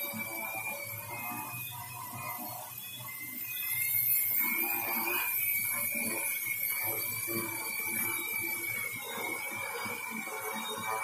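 Multirotor drone hovering: its electric motors and propellers give a steady high whine that wavers slightly in pitch, louder from about four seconds in.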